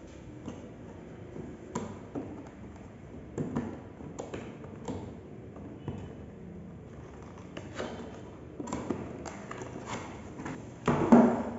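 Light taps and clicks of computer parts and case being handled during a PC assembly, scattered every second or so, with a louder knock and rattle near the end.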